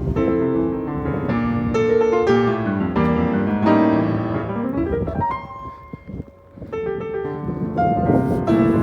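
Jazz piano background music: a run of piano notes that thins out briefly about six seconds in, then picks up again.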